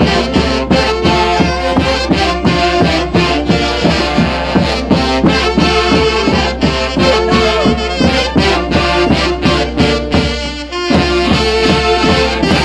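Live instrumental music from a Huancayo orquesta: wind instruments, brass and saxophones, play the melody over a steady bass and drum beat. The band drops back briefly near the end, then picks up again.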